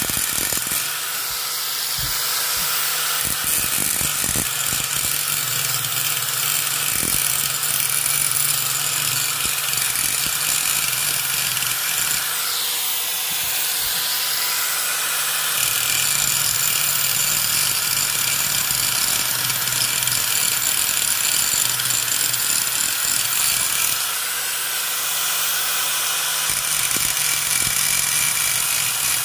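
Electric angle grinder running steadily, its spinning disc worked against the spokes and rim of a spoked motorcycle wheel, grinding metal.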